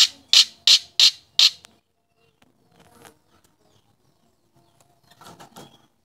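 Caged myna calling: a rapid run of five loud, harsh squawks, about three a second, then a pause and a few fainter calls near the end.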